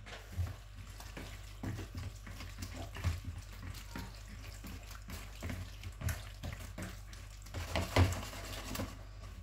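Hands squishing and turning raw anchovies in a wet spiced marinade in a plastic bowl: soft, irregular squelches with light taps against the bowl, a few louder near the end.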